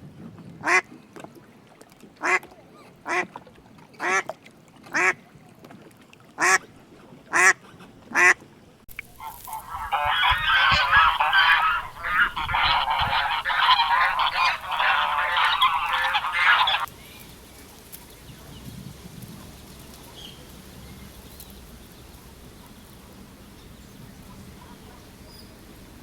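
A duck quacking loudly about eight times, roughly a second apart. About ten seconds in, this gives way to some seven seconds of dense, overlapping calling, then only faint background.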